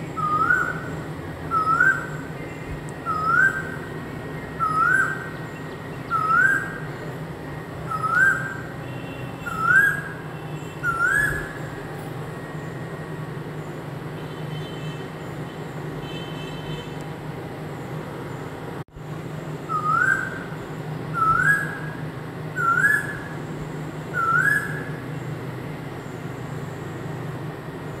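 Asian koel calling: a series of rising whistled notes, one about every second and a half. Eight come in a row, then a pause, then four more near the end. Another bird's faint short chirps come in twice in between, over a steady low hum.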